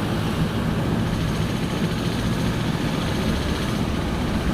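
Mercedes-Benz Unimog's diesel engine running steadily as the truck drives, a low, even rumble.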